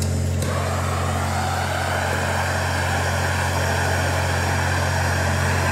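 Handheld gas torch on a yellow cylinder, lit with a faint click about half a second in, then burning with a steady hiss as it heats the bent steel neck of a truck intercooler for straightening. A steady low hum runs underneath.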